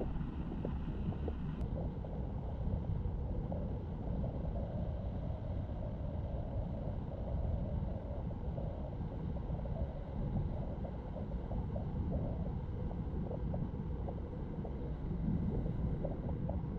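Steady low rumble of a car driving: road and engine noise. A faint higher hum drops out about a second and a half in.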